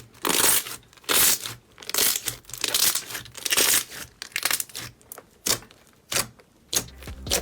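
Slime being squeezed and pressed by hand, giving a crackling, crinkling burst about once a second, then shorter sharp pops in the last few seconds.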